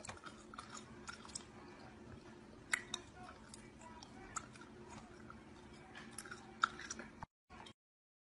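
Typing on a computer keyboard: irregular key clicks, some louder than others, over a faint steady hum. The sound cuts off suddenly about seven seconds in.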